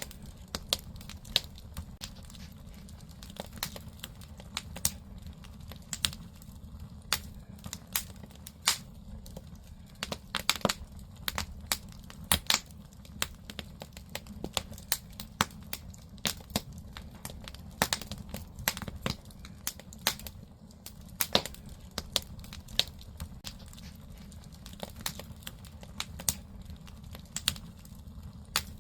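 Firewood burning in a wood-fired agungi firebox: irregular sharp crackles and pops over a steady low rumble of the fire.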